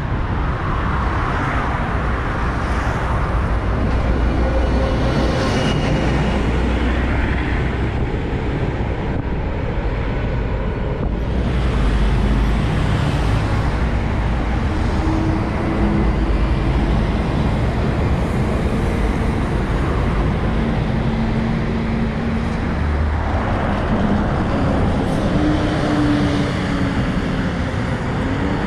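Road traffic: city buses and cars driving past on a busy avenue, a continuous low engine and tyre rumble with the drone of passing engines, one holding a steady note for several seconds in the second half.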